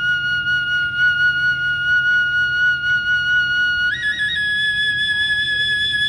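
Kagura bamboo transverse flute (fue) holding a long high note, then stepping up with a quick grace-note flourish about four seconds in and holding the higher note.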